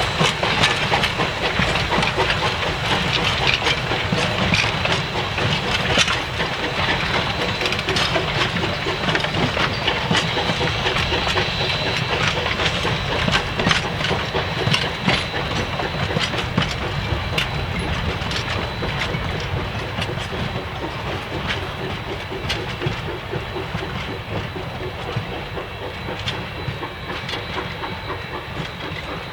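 Steam-hauled passenger train rolling past, its wheels clicking over the rail joints amid steady rumble and hiss, the sound slowly fading as it moves away.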